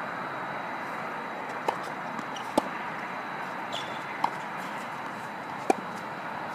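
Tennis ball being hit back and forth in a rally, with four sharp pops of ball on racket and hard court about a second or so apart, the second and fourth the loudest, over a steady background hiss.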